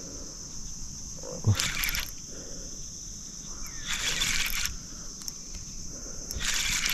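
Steady high-pitched drone of insects, broken three times by short hissing rushes of noise: about a second and a half in, around four seconds, and near the end.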